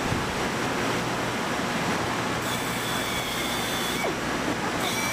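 Steady factory machinery noise. About two and a half seconds in, a handheld pneumatic tool starts running with a high air hiss and a steady whine, stops for a moment near the end, then starts again.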